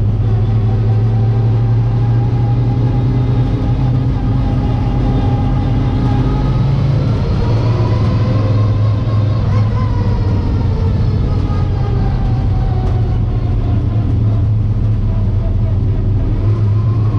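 Late model stock car's V8 racing engine heard from inside the cockpit, running hard under race load. The engine pitch rises in the middle of the stretch and then drops back, and starts to climb again near the end, as the driver gets on and off the throttle around the track.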